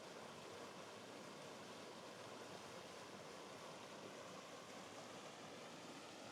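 Faint, steady rush of running water from a small river waterfall spilling into a pool.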